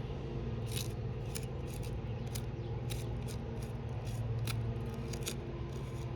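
Repeated short, gritty scrapes on asphalt roof shingles, roughly two a second at uneven spacing, over a steady low hum.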